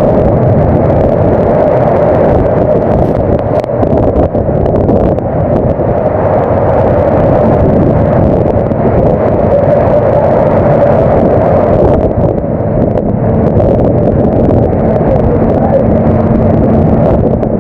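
Loud, steady roar of storm wind and heavy seas washing across the open working deck of a longline fishing boat.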